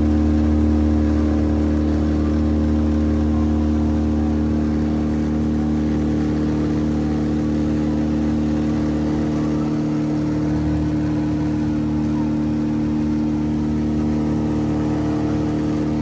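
Glider's electric Pipistrel sustainer motor and propeller running steadily at power for a climb, a constant drone with rushing air noise, heard inside the cockpit.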